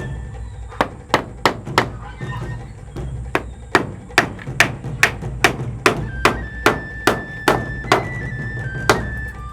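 Hammer blows, about two to three a second, with a short break about two seconds in, over background music with a held melody.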